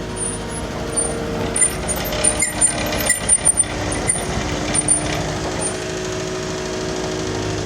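Cat 259D compact track loader's diesel engine running steadily. A rapid run of sharp knocks and clicks sounds over it from about one and a half to five seconds in.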